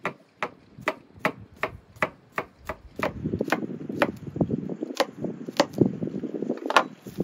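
Kitchen knife chopping garlic on a wooden cutting board: sharp strikes at a steady pace of about three a second, growing busier after about three seconds, with one louder knock near the end.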